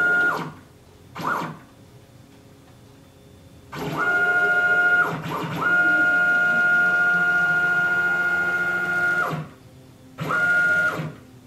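Closed-loop NEMA 23 stepper motor driving the Z-axis ball screw of a CNC-converted Sieg X2 mini mill through several jog moves: a steady high whine that rises in pitch as each move speeds up and drops away as it stops, the longest about four seconds, with short pauses between. The freshly cleaned and oiled ball nut sounds smooth and healthy.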